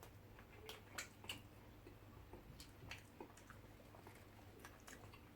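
Near silence with faint scattered clicks and smacks of eating: people chewing soft beans and bread.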